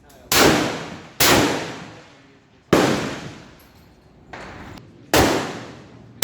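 Centrefire rifle shots: four loud, sharp reports at uneven spacing, with a fainter one between the third and fourth, each ringing out for about a second.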